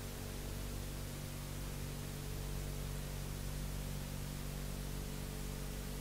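Steady hiss with a low mains hum and its evenly spaced overtones, no music or voice: the noise floor of an old analogue videotape transfer.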